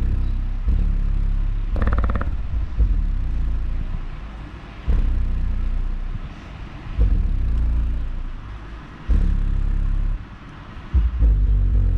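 JBL A1300HI subwoofer playing bass-heavy music loudly. Deep bass notes rise and drop away every couple of seconds.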